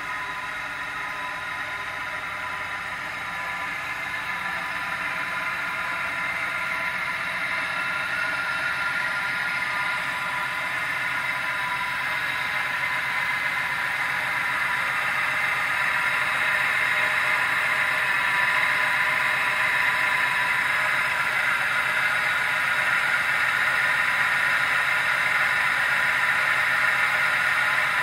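Pontiac Firebird Trans Am's LT1 V8 running with a steady high-pitched whine on top, which grows gradually louder. The owner suspects a defective air-conditioning compressor or alternator.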